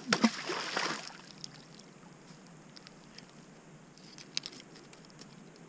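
A thrown flat object skipping across pond water: a quick run of splashes and skitters lasting about a second, with a couple of faint clicks about four seconds in.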